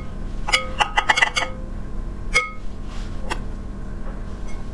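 Metal spoon clinking against a glass bowl while scooping a passion-fruit alginate mixture: a quick run of short ringing clinks about half a second to a second and a half in, then single clinks at about two and a half and three and a half seconds.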